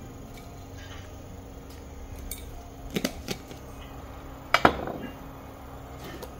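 Glass jars and a spoon clinking and knocking together and against the wooden table: two quick clinks about three seconds in, then a louder knock with a short ring about a second and a half later, over a faint steady hum.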